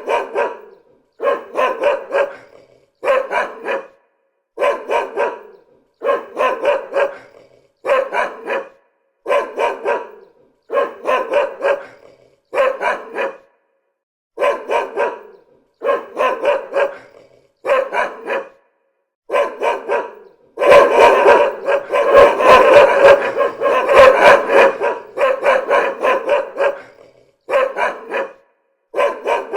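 A dog barking repeatedly, in quick volleys of two to four barks about every second and a half, with short silences between them. From about two-thirds of the way through, the barking thickens into a louder, almost unbroken run for a few seconds, then falls back into separate volleys.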